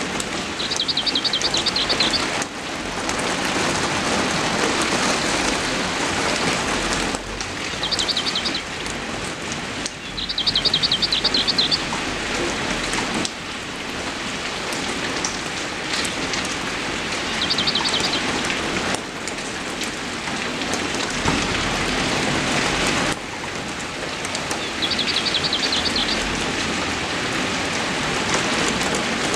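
Steady heavy rain falling, its level jumping abruptly every few seconds. A bird sings short, high, rapid trills several times over it.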